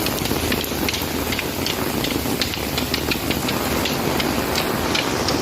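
Steady hiss of rain with irregular light ticks scattered through it.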